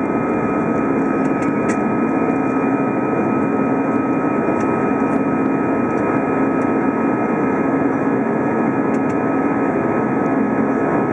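Airbus A320 cabin noise during the climb-out after takeoff: the steady rush of jet engines and airflow heard from inside the cabin, with a few thin, steady high whines above it.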